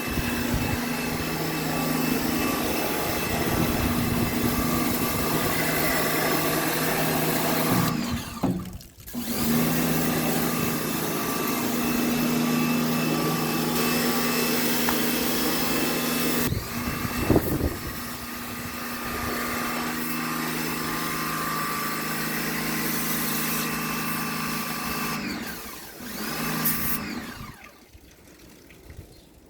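Electric pressure-washer jet pump running with a steady motor hum, spraying water onto an air conditioner's indoor unit during a jet service. It stops briefly about eight seconds in and again near the middle, then dies away near the end as the spray is shut off.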